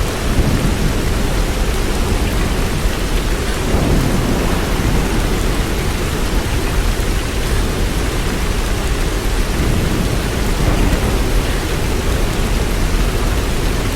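Heavy rain mixed with hail pouring down in a storm: a dense, steady downpour with a low rumble underneath.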